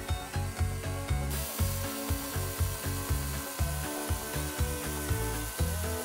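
Background music with a steady beat and bass line; a steady high hiss sets in underneath about a second in.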